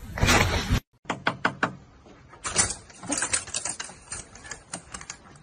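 A loud noisy sound that cuts off abruptly under a second in, then, after a brief silence, a rapid series of light clicks and taps, a short run followed by a longer, denser one.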